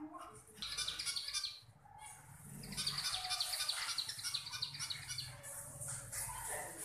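A flock of aviary finches chirping, many short high calls overlapping in a busy chatter that pauses briefly about two seconds in, over a faint low hum.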